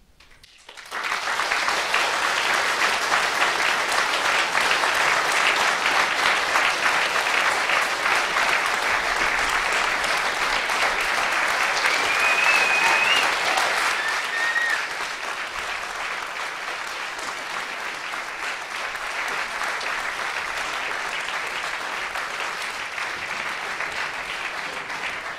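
Theatre audience applauding at the end of a performance, the applause starting abruptly about a second in and easing slightly after about fifteen seconds, with a short rising whistle-like tone near the middle.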